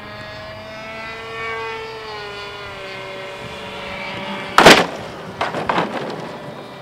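Radio-controlled four-engine model C-130 Hercules in flight, its propellers whining in several tones that slide slowly in pitch. About four and a half seconds in comes a loud crash as it hits the ground, followed by a few smaller impacts as it skids to a stop.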